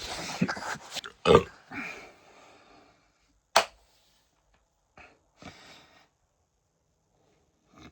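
A man burping loudly from a stomach bloated with fizzy lemonade. The burps are long and throaty through the first two seconds, loudest about a second in, with a short sharp one about three and a half seconds in and quieter ones near the end.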